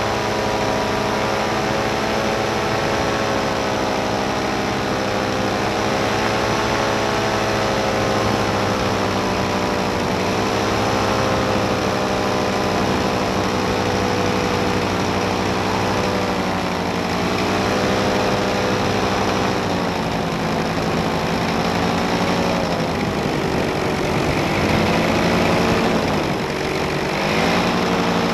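Paramotor engine and propeller running steadily in flight, the engine note dipping and climbing back a few times, most deeply near the end.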